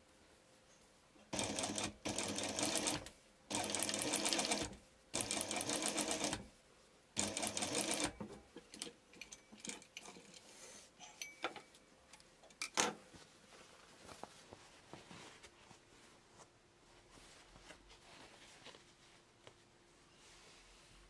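Sewing machine stitching in four short runs of about a second each, its needle going in a fast, even patter. Quieter handling clicks follow, with one sharp click about thirteen seconds in.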